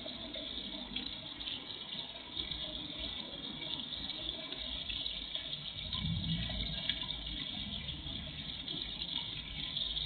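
Small garden pond fountain splashing steadily, its jets falling back onto the water surface, with a low rumble swelling slightly about six seconds in.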